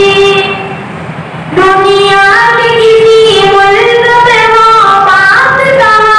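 A boy singing a naat, an Urdu devotional poem, solo into a microphone. He holds a long note that fades out, pauses about a second, then comes back in with a winding, ornamented melodic line.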